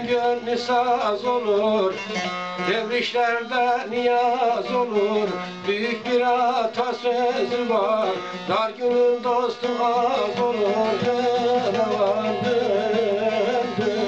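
Turkish folk music instrumental passage: a plucked saz (bağlama) plays a wavering melody over steady drone notes, with no singing.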